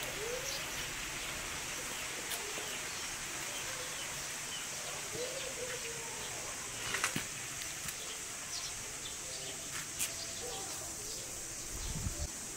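Rural yard ambience: short, low, arching bird calls repeat every second or two over a steady high hiss. A few light clicks come as a cloth-wrapped lid is pressed onto a metal cooking pot, and there is a short low thump near the end.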